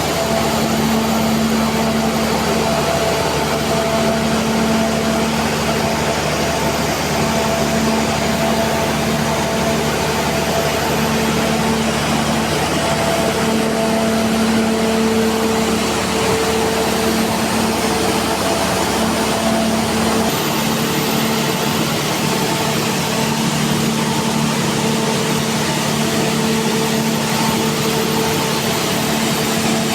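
Machinery running steadily: a loud, constant hum over a noisy whir. About two-thirds of the way through, a low rumble drops away while the hum carries on.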